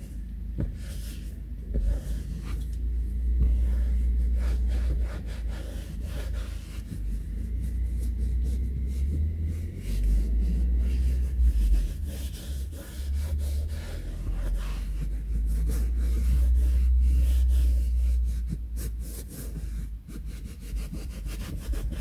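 Microfibre cloth rubbed in repeated back-and-forth strokes over a perforated leather car seat, wiping off the leather cleaner, with a low rumble underneath.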